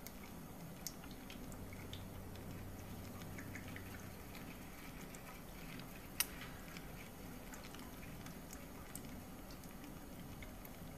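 Faint steady low hum with scattered small ticks and clicks, and one sharper click about six seconds in.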